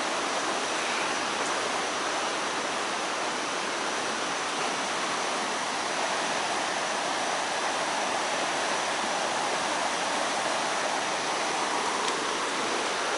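The Great Egg Harbor River in flood, rushing steadily past a bridge; the river is running far over its banks.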